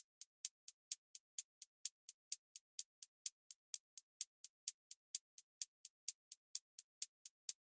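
Drum-machine hi-hat pattern playing on its own: short, crisp high ticks at an even pace of about four a second.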